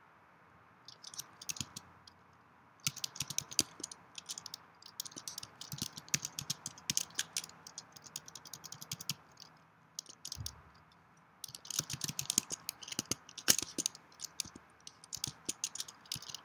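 Typing on a computer keyboard: rapid key clicks in bursts of several seconds, with short pauses between them. There is a single soft low thump in the pause about ten seconds in.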